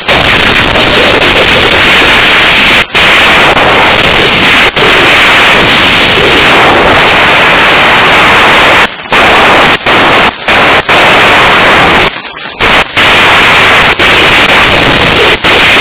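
Wind blasting a motorcycle action camera's microphone at road speed: a loud, distorted rushing noise with no engine note standing out. It cuts out briefly several times in the second half.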